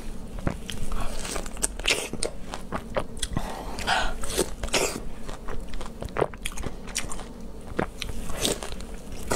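Close-miked biting and chewing of fresh star fruit (carambola): a quick, irregular run of crunches and clicks.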